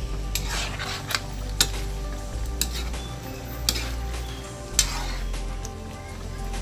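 A spatula stirring a chicken afritada stew in a metal pan, with irregular scrapes and clinks against the pan about once a second over a steady low hum.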